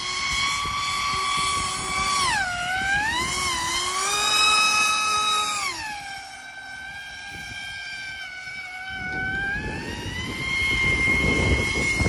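Pro Boat Aerotrooper brushless RC airboat on a 4S LiPo running on the water: its electric motor and air propeller whine loudly, the pitch dropping as the throttle eases about two seconds in, climbing back, falling again around six seconds and rising once more near the end. A low rumbling noise builds under the whine from about nine seconds.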